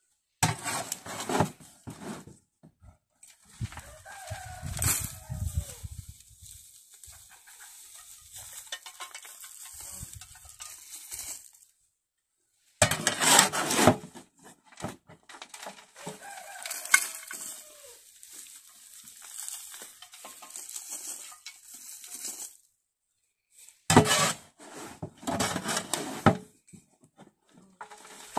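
A shovel scraping and scooping wood chips and peat out of a steel wheelbarrow and tipping them onto the ground, in loud bursts. A rooster crows in the background, twice in falling calls.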